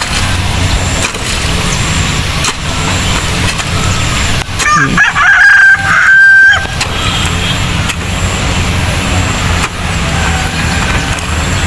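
A rooster crows once about five seconds in, a call of roughly two seconds and the loudest sound here. Under it runs a steady low rumble, with occasional knocks from a hoe working wet mud.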